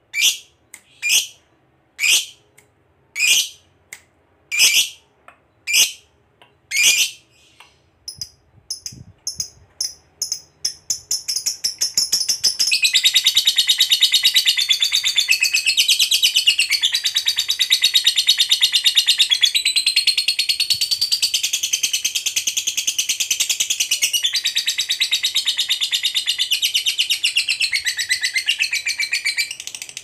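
A lovebird calling. For the first seven seconds it gives sharp single chirps about once a second, then speeds up from about eight seconds in. From about twelve seconds in it breaks into a long, unbroken rapid chattering trill, the 'ngekek panjang' that keepers prize in a fighter lovebird in full voice.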